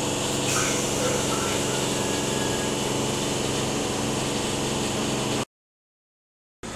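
Steady hum of a stationary double-deck suburban electric train standing at the platform with its doors open, its onboard equipment running with a steady low hum and many even overtones. About five and a half seconds in the sound cuts off to dead silence for about a second.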